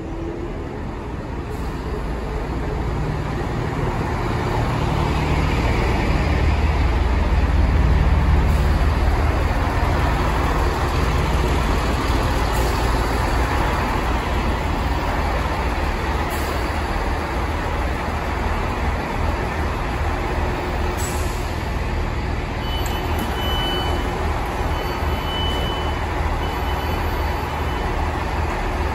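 Chiltern Railways Class 165 diesel multiple unit running into the platform, its diesel engines rumbling louder as it draws alongside, then running steadily once stopped. Short high beeps near the end as the doors open.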